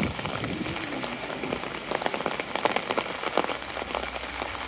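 Steady heavy rain falling: a constant hiss with many small, sharp drop ticks close by.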